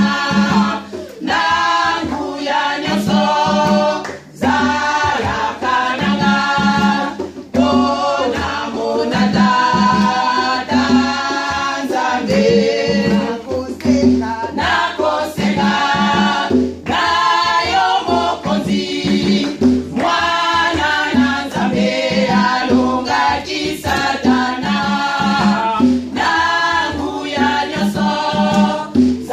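Women's choir singing a gospel song in Lingala, several voices together in phrases.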